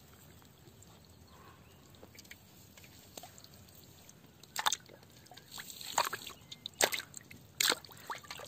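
Water splashing and sloshing in a clay pot as cleaned quail carcasses are dropped in and rinsed. It is quiet for the first half, then a run of sharp splashes begins about halfway through.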